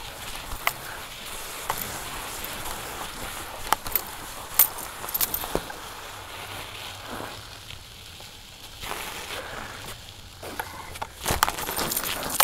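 Bicycle tyres crunching over packed snow, with scattered sharp clicks and knocks. It goes quieter for a couple of seconds past the middle and louder and busier near the end.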